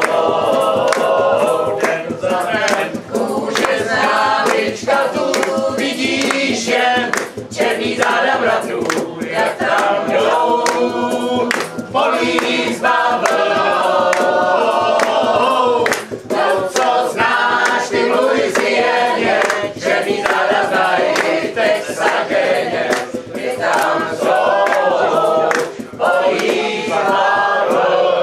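A group of voices singing a Czech tramp song together, with acoustic guitars strumming.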